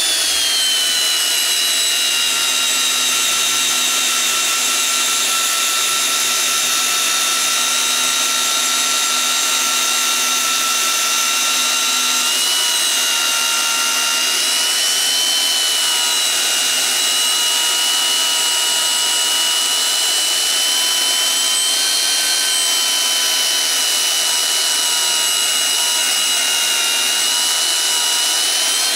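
Hougen HMD130 magnetic drill's motor running under load as its annular cutter drills upside down through steel: a loud, steady high whine that drops slightly in pitch in the first second as the cutter bites, then holds with small wavers.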